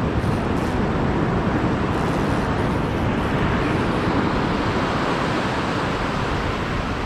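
Steady rush of breaking ocean surf, with wind rumbling on the microphone.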